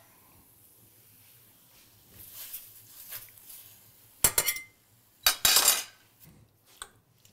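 Metal ladle clinking against stainless steel saucepans as tomato sauce is ladled onto pasta: a few sharp clinks about four seconds in and again about a second later, with fainter taps near the end.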